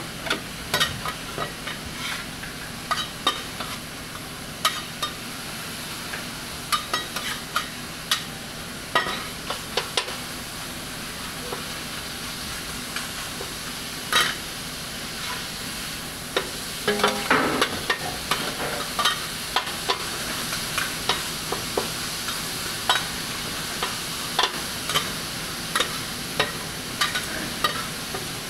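Beef and vegetables sizzling on a hot steel teppan griddle, with the sharp clacks and scrapes of metal spatulas chopping and turning the food, many times throughout.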